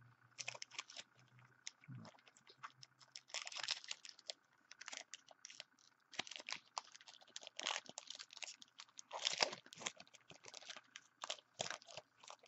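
A 2012 Bowman football card pack's wrapper crinkling and crackling as it is torn open and handled, in many short, irregular bursts.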